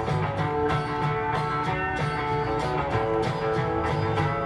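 Guitar-led music.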